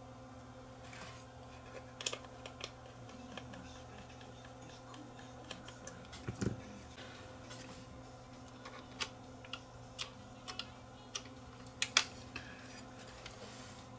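Scattered small clicks and taps from the Sony PCM-R300 DAT deck's tape mechanism being handled by hand, over a steady low hum. A dull knock comes about six seconds in and the sharpest click about twelve seconds in.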